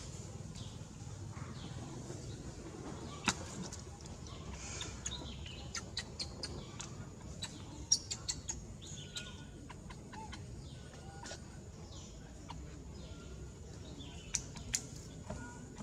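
Scattered sharp clicks and taps over a steady low background rumble, with a few faint short calls.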